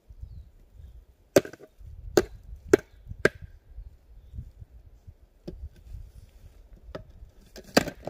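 Shovel chopping into the ground while digging: four sharp strikes roughly half a second apart, then three more spaced out near the end.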